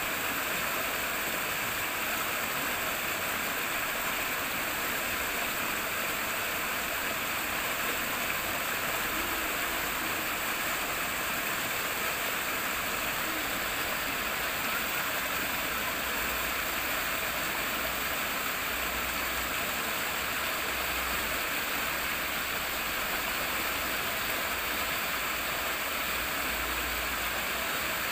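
Rippling running water, a steady, unbroken rush and babble of flowing water.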